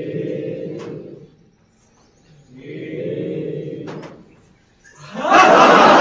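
A group of voices chanting together in long held tones, twice, each about a second and a half long. About five seconds in, much louder crowd noise breaks out, with laughter.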